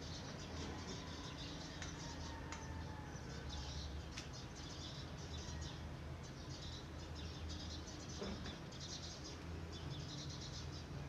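Pancake batter cooking in a nonstick pan: faint, fizzing sizzle with light crackles over a steady low hum, and a few soft clicks.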